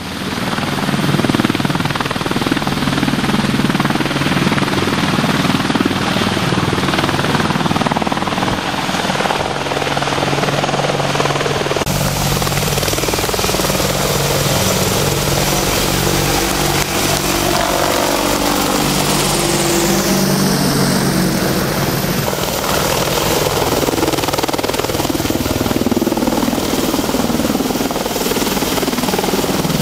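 AH-64D Longbow Apache attack helicopter running loud and steady, its rotor and twin turbine engines filling the sound, with sweeping shifts in pitch about two-thirds of the way through as it moves.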